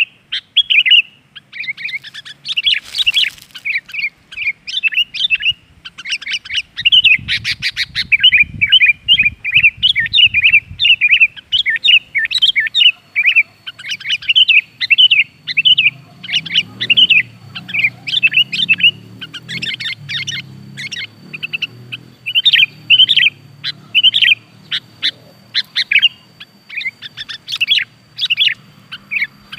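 Sooty-headed bulbul (kutilang) chattering and singing in a near-continuous run of short, quick chirpy notes, the lure song used to get a captive bulbul singing. A faint steady high tone joins in from about halfway through.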